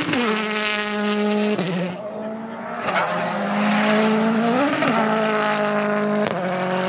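A World Rally Car's turbocharged four-cylinder engine running hard on a rally stage. Its pitch holds steady, then breaks sharply at each gear change, several times.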